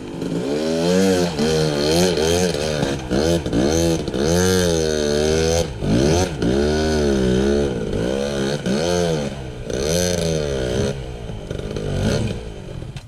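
Dirt bike engine revving up and down again and again as the throttle is worked while the bike climbs a rocky creek-bed waterfall. The sound dies down near the end.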